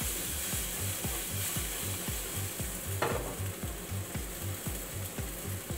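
Strips of chilli, ginger and garlic sizzling in a frying pan on a gas hob as the pan is shaken, with one knock about three seconds in as the pan is set back down on the burner.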